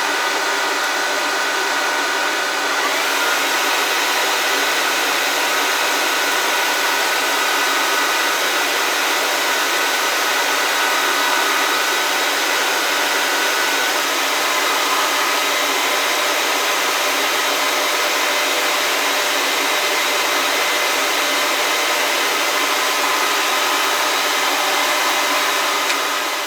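Hot air rework gun blowing steadily, a constant rushing hiss with a fan whine in it, as used to heat the laptop's GPU chip for removal or soldering.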